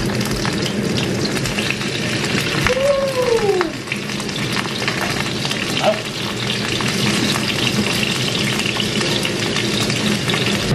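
Salmon frying in a hot pan, a steady crackling sizzle throughout.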